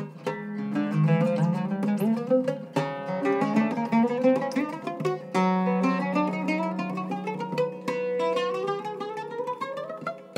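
Cedar-top Iraqi-style oud played with a plectrum: a rapid run of plucked notes moving up and down the whole fingerboard, with a low string left ringing in the middle while the melody climbs above it.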